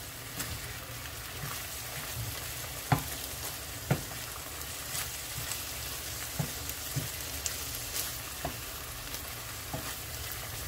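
Seasoned ground beef sizzling as it browns in a frying pan, stirred with a wooden spoon that scrapes and knocks against the pan, with the sharpest knocks about three and four seconds in.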